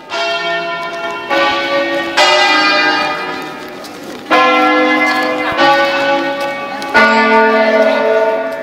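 A ring of six church bells tuned in A, cast by Bizzozero, chiming a preset 'concerto solenne' sequence: about six single strokes a second or so apart, each bell ringing on and overlapping the next.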